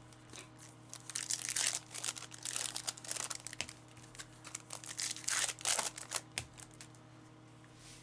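Foil trading-card pack wrappers being torn open and crinkled, in bursts of rustling that die away after about six seconds, over a faint steady hum.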